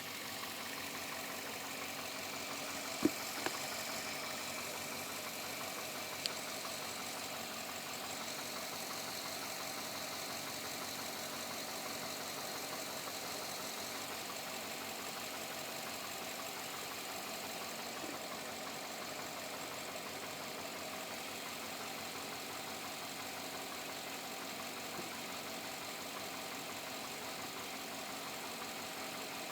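2007 Chevrolet Avalanche V8 engine running steadily with a knocking noise, which the owner suspects is engine knock or piston slap that four dealer visits have not cured. A few sharp clicks sound in the first several seconds.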